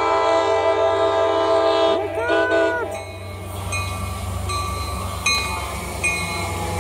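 Approaching train's horn sounding a long blast of several tones at once, a short break about two seconds in, then a brief second blast. After that, the rumble of the train pulling into the station, with a regular click a little under once a second.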